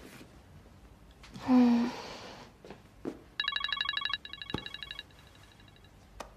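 A phone ringing with a rapid electronic trill about halfway through, loud at first and then softer. Shortly before it, a person makes a brief vocal sound, the loudest thing here.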